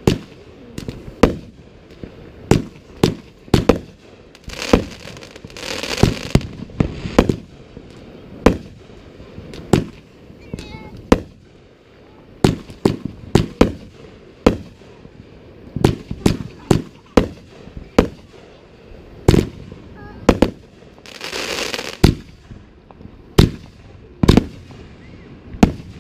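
Aerial fireworks bursting overhead: a string of sharp bangs and pops at irregular intervals, about one or two a second, with two longer crackling hisses, one about six seconds in and one about twenty-one seconds in.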